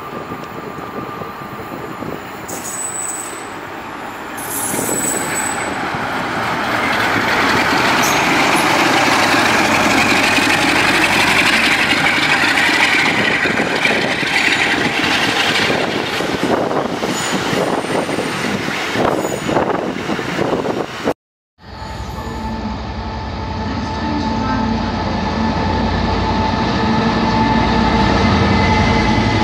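A diesel locomotive running through the station, its engine and wheel noise building to a loud rush after a few seconds. After a sudden cut about two-thirds of the way through, an EWS Class 66 diesel locomotive hauls a freight train of steel-coil wagons past: its two-stroke engine hums steadily over the low rumble of the wagons.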